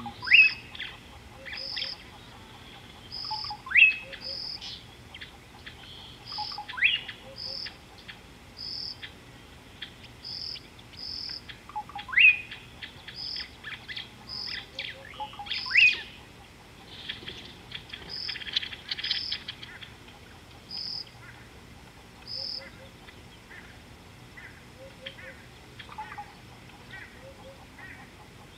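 Wild birds calling: short high notes repeated about once a second, with loud sharply rising whistles every few seconds. The calls thin out in the last part.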